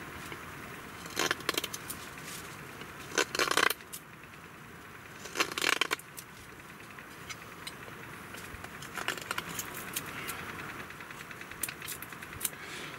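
Knife blade carving into a wooden stick to cut a square hole: short bursts of sharp clicking cuts and scrapes, loudest three times in the first six seconds and weaker later.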